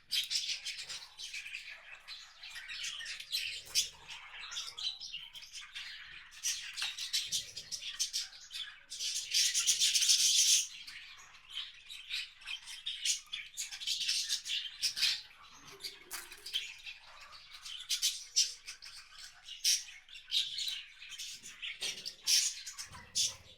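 Small wild birds chirping and calling at a feeder, with many short chirps and sharp clicks one after another and a louder, harsher stretch of about a second and a half partway through.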